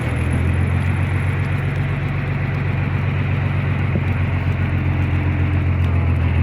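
Fishing boat's engine running steadily at a constant speed, a loud low hum.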